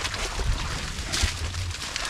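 Hands splashing and sloshing through shallow muddy water among pond plants, groping for fish, with irregular low thumps.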